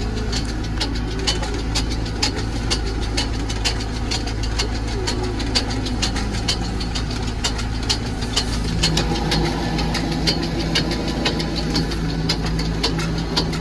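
Tractor engine running steadily, heard from inside the cab, with a quick run of sharp light clicks, several a second, over the engine note. The engine note grows stronger about nine seconds in.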